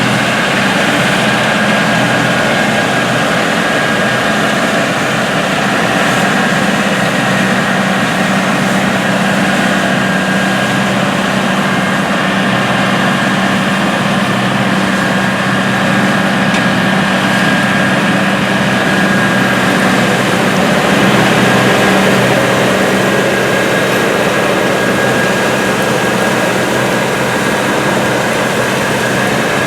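CLAAS Lexion 760 combine harvesting wheat: its Caterpillar C13 six-cylinder diesel runs steadily under load over the threshing machinery, with a thin constant whine above the engine hum. It swells slightly a little after the middle.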